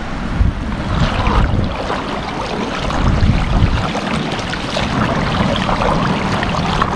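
Boots wading step by step through a shallow, muddy rainwater puddle, each step sloshing and splashing.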